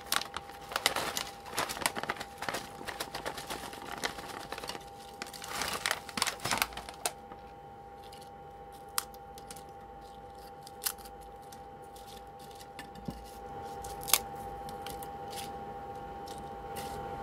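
Koikeya Karamucho potato chips poured out of their foil bag onto a ceramic plate, a dense crinkling and clattering for about seven seconds. After that come a few single clicks as the chips are pushed around by hand.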